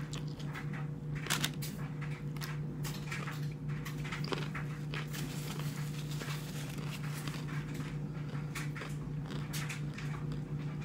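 Crunching and chewing of a deep-fried taco shell close to the microphone, in irregular crackly strokes, over the steady low hum of a clothes dryer running.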